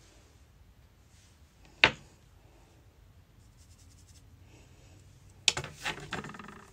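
Small hard makeup items handled on a desk: one sharp click about two seconds in, then a short clatter of clicks and rattles near the end as things are put down and picked through.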